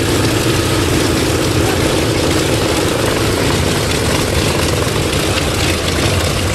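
Propeller aircraft's radial piston engine running steadily, with a low rumble under a strong mid-pitched drone.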